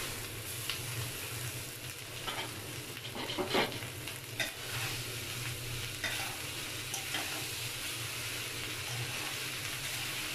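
Fried vegetables, chicken and egg sizzling in a metal pan as boiled rice is tipped in and stirred through with a metal spatula: a steady sizzle with a few scraping strokes against the pan.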